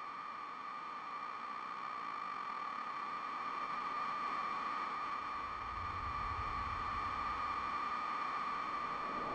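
Electronic drone from a film score: a steady high ringing tone over a bed of hiss, slowly swelling. A low rumble comes in about halfway through.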